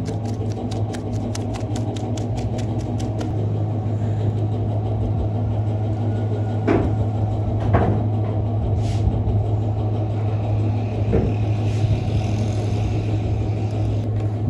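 A steady low machine hum. A fast regular ticking, about five a second, runs over it and stops about three seconds in, and a few short knocks or scrapes come later.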